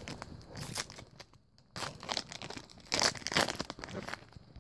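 Foil wrapper of a Pokémon trading-card booster pack crinkling and tearing as it is ripped open by hand, in irregular bursts with a short lull about a second and a half in. Near the end the cards are handled.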